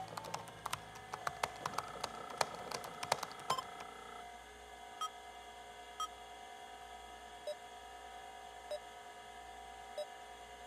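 Computer keyboard keys clicking in a quick run for about the first three and a half seconds. Then come five short electronic beeps, roughly one every second or so, over a steady electronic hum.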